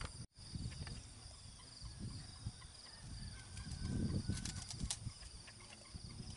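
Insects chirping in a steady, pulsing high trill, over low rumbling noise that swells around the middle and a few light clicks. The sound cuts out for a moment just after the start.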